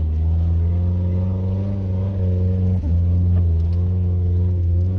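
A 4x4 vehicle's engine running under way, a steady low drone with a brief dip about three seconds in.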